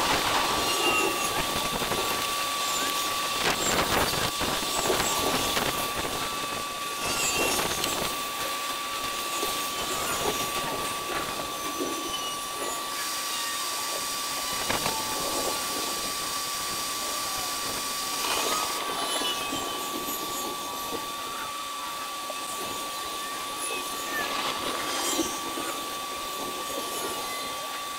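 Outdoor thunderstorm sound sped up twenty times: a dense hiss with scattered crackles and thumps over a steady high whine, louder for the first several seconds and then easing off.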